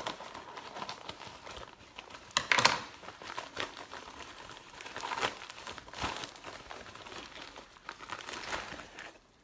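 Scissors cutting into a plastic mailing bag, then the plastic crinkling and rustling in irregular bursts as the bag is pulled open and handled, loudest about two and a half seconds in.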